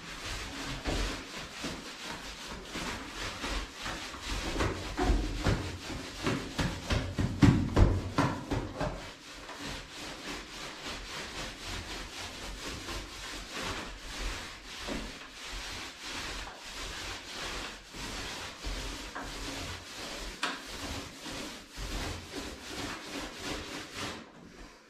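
Paint roller on a long pole rolling wall paint over a plaster wall: a repeated rasping rub with each back-and-forth stroke. It is louder between about four and eight seconds in, and stops suddenly near the end.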